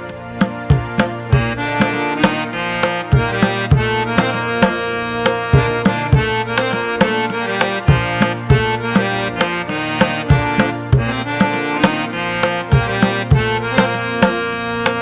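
Instrumental background music with a steady, evenly repeating drum beat under sustained melodic notes.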